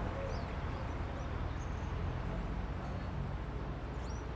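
Steady low rumble of city traffic, with a few short, high bird chirps now and then.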